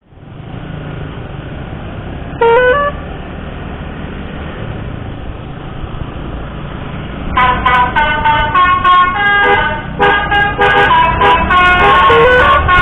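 Indonesian bus's telolet horn, a melodic multi-tone horn. It gives one short rising toot about two and a half seconds in, then from about seven seconds plays a fast run of changing notes like a tune. Both sound over a steady background rumble.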